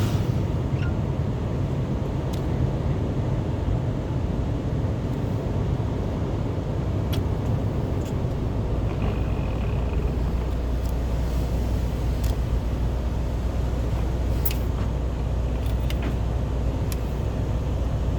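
Car driving, with a steady low rumble of engine and tyres on the road and a few faint sharp clicks scattered through it.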